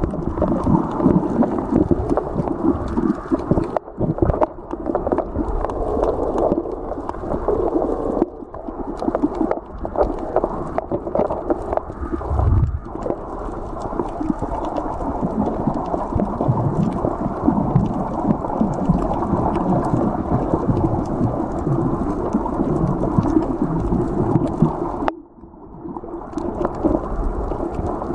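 Muffled underwater noise picked up by a submerged camera: a continuous low rush and rumble of water moving against the camera as it is carried along, with a brief lull about three-quarters of the way through.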